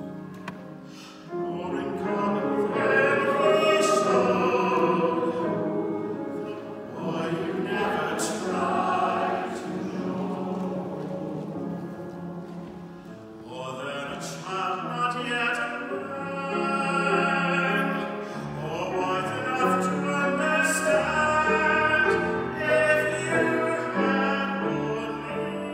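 Large mixed choir singing with instrumental accompaniment, the sound swelling and easing with the phrases and dipping briefly about halfway through.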